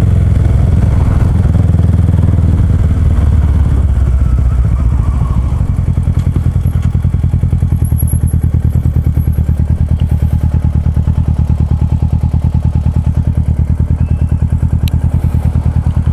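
Motorcycle engine running as the bike rides along, then settling to an idle with an even pulsing beat once the bike is stopped in traffic.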